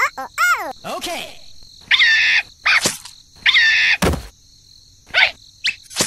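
A quick string of short whistle-like sounds sliding up and down in pitch, with squeaks and a single thud about four seconds in.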